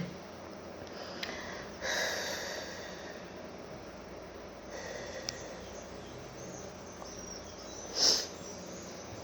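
A person ill with COVID-19 breathing and sniffing between coughing fits, with a short breath about two seconds in and a sharper, louder burst near the end.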